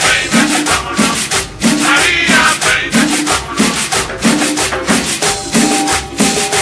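Cumbia track playing loudly with a steady bouncing bass beat and crisp shaker-like percussion; a held note comes in about five seconds in.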